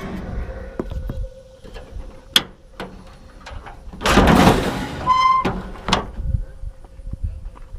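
A door being worked: sharp clicks and clunks, a louder scraping rush about four seconds in, then a brief high squeak.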